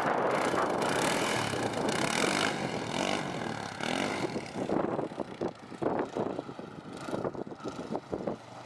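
A quad's Predator 500 single-cylinder engine revving hard, its pitch rising and falling, then dropping away about halfway through.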